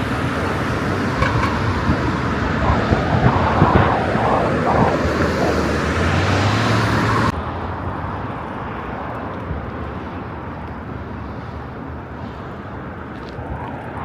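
Outdoor road traffic noise from passing cars, a steady rushing hiss with a low rumble, which drops abruptly to a quieter, duller background about halfway through.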